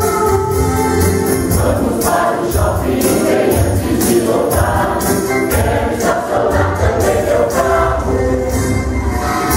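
Mixed church choir singing a Christmas song in Portuguese over an upbeat accompaniment with a steady percussion beat.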